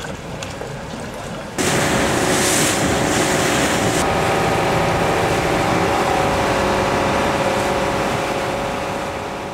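Motorboat under way: its engine running steadily under loud rushing water and wind on the microphone. The sound cuts in suddenly about a second and a half in, after quieter canal ambience, and fades near the end.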